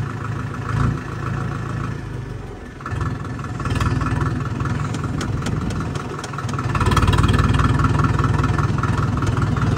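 Vehicle engine running steadily with a regular rhythmic beat. It dips briefly about three seconds in and grows louder about seven seconds in.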